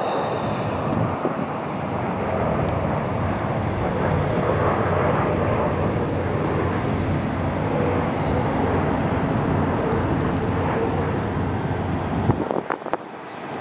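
Boeing 737 MAX 8 jet airliner passing low on final approach, its CFM LEAP-1B turbofans at approach power giving a steady, dense rumble. The rumble is strongest mid-way and falls off shortly before the end.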